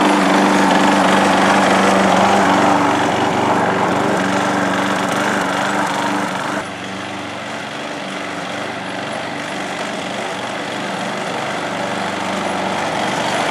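Walk-behind lawn mower engine running steadily, spinning a home-made wooden blade cut from a fence board. The sound drops abruptly about halfway through, then slowly grows louder again.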